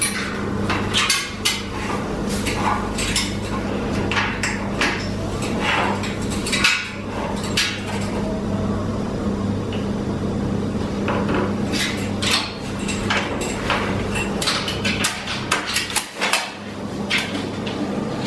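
Blue-and-gold macaw's beak and claws clicking and knocking on a metal kitchen trolley as it climbs, irregular sharp taps throughout, over a steady low hum.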